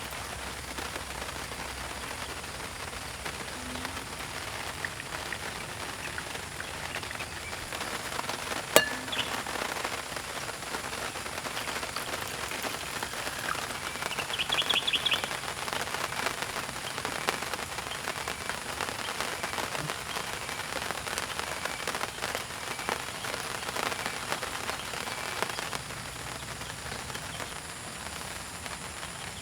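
Steady heavy rain falling, with scattered crackles and one sharp pop about nine seconds in.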